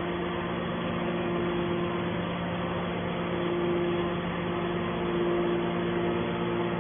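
Hydraulic metal baler's power unit (electric motor and hydraulic pump) running with a steady, even hum.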